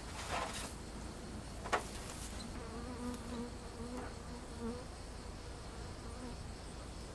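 Honeybees buzzing at the hives: a wavering hum from about two and a half seconds in that comes and goes until near the end. It is preceded by a brief scuff and then a single sharp knock, the loudest sound, as the hive is handled.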